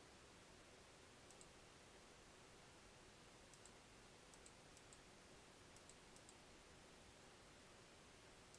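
Faint computer mouse clicks, a scattering of single clicks and quick double clicks, over near-silent room tone.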